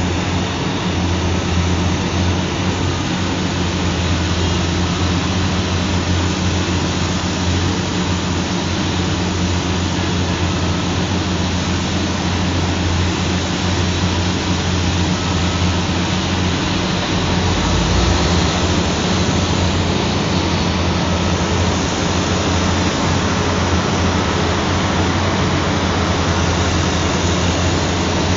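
Heavy engine running steadily at a mine site: an unbroken low drone with a constant hum over a rush of noise.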